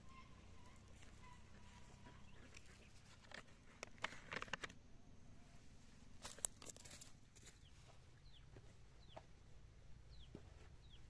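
Chickens clucking faintly in the background, with a few short falling chirps in the second half. About four and again about six seconds in, bursts of crunching and rustling like steps on dry corn stubble.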